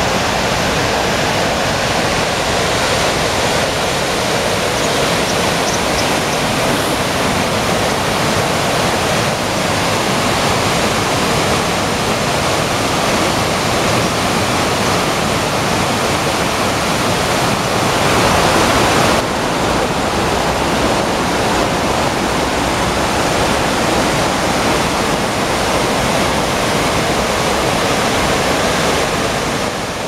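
River water rushing down a cascade over smooth granite slabs: a steady, loud rush of white water, briefly a little louder about eighteen seconds in.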